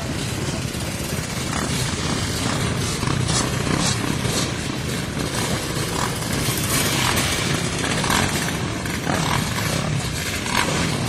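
Off-road quad bike engines running and being revved, a loud dense engine noise that swells slightly after a few seconds.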